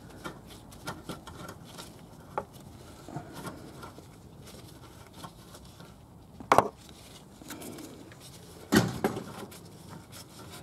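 Gloved hands screwing a wideband O2 sensor into its exhaust bung and setting a wrench on it, heard as soft rustles, scrapes and small clicks, with two sharper knocks about six and a half and nine seconds in.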